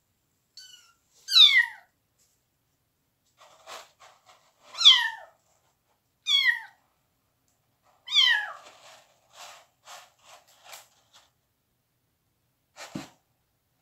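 Young kittens mewing about five times, each call high-pitched and falling in pitch, which the owner takes for them crying for their mother. Between the calls come short scratching sounds of a kitten's paws in clay cat litter, and near the end a single knock.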